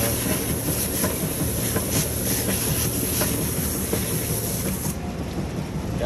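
High-pressure water spray from a hose wand blasting leftover concrete off the inside walls of a volumetric concrete truck's mixing auger trough: a steady, loud hiss over a steady low machine drone.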